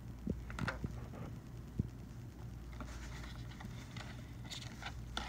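Handling sounds from a plastic catheterization kit: a few small taps and clicks, then a rustle of packaging about three seconds in as gloved hands reach into the tray.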